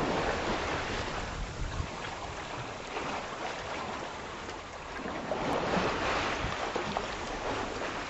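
Sea water rushing and splashing past a sailing yacht's stern under way, with wind buffeting the microphone; the wash swells louder twice, at the start and again about six seconds in.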